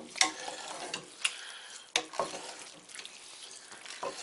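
Wet squelching and swishing of spaghetti being stirred through thick tomato meat sauce in a stainless steel stockpot, with a few sharp knocks of the spoon against the pot.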